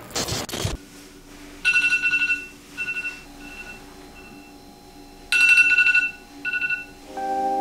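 Smartphone alarm ringing in rapid pulsing beep bursts: a loud burst, a few fainter short beeps, then another loud burst about five seconds in. A short hiss of TV static opens it, and music comes in near the end.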